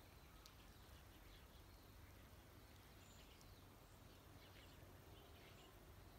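Near silence: faint outdoor ambience with a few faint, short, high chirps from distant birds.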